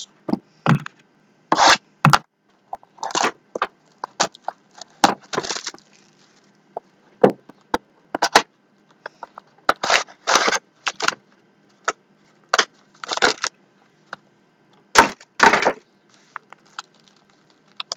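Trading-card box packaging being torn open and handled: irregular crackles, rips and short scrapes of wrap and cardboard, with brief pauses between them.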